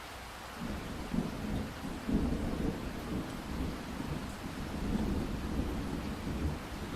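Steady rain falling, joined under a second in by a low rolling rumble of thunder that swells and carries on.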